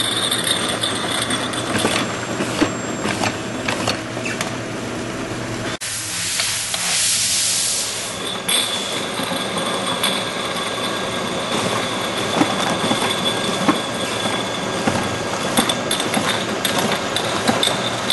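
Automatic jar labeling machine running: conveyor, feed screw and wipe-down brush motors make a steady mechanical clatter with many small clicks. About six seconds in there is a hiss lasting a couple of seconds, and later a thin steady whine runs under the clatter.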